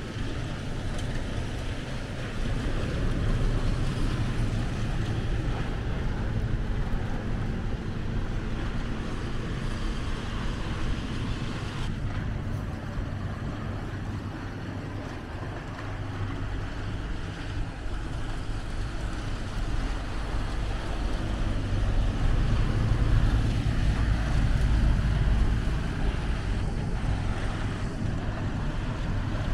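Wind rumbling on the microphone, swelling and easing, over a steady low hum.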